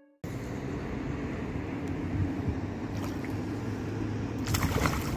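After a brief silence, steady outdoor background noise with a low hum. Near the end comes a short run of splashes as a hooked bream thrashes at the water's surface.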